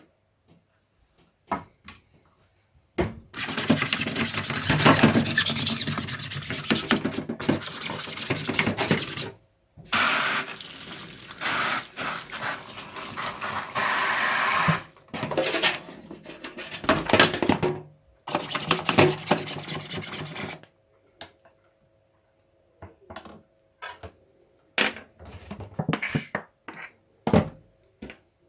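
Tap water running into a sink in several spells of a few seconds each, with short breaks, followed by scattered knocks and clatter from handling.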